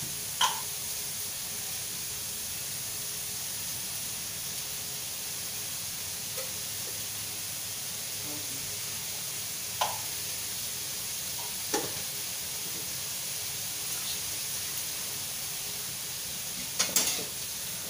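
Vegetables sizzling in a hot steel wok over a gas flame, a steady hiss, with a few clinks of a metal spatula against the wok scattered through and a quick run of scrapes and clinks near the end as they are stirred.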